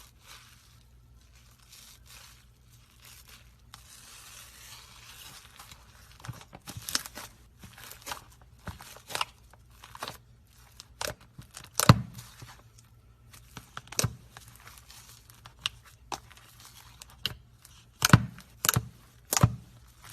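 Slime being squeezed and pulled, giving a soft hiss and then irregular sharp pops and crackles, the loudest three in quick succession near the end.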